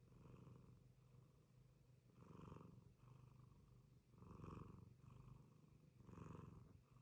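Cat snoring softly, a faint purr-like rasp that swells with each breath, about once every two seconds.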